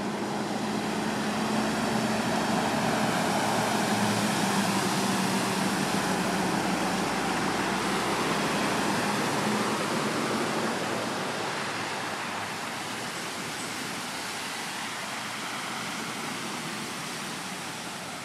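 Box trucks driving through a flooded road, their tyres throwing up a steady rush of water spray over a low engine hum. The rushing swells over the first few seconds and fades slowly after about ten seconds.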